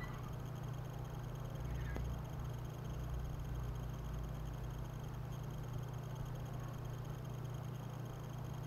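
Steady low electrical hum with a faint even hiss, and a single small click about two seconds in.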